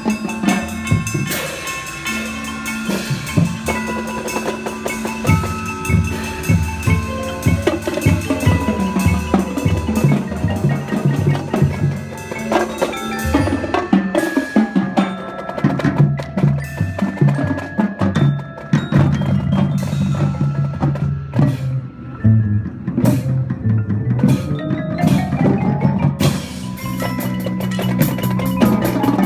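Percussion ensemble playing: marimba and other mallet keyboards with chimes and drums. A softer mallet passage in the middle, with drums and cymbals coming back in near the end.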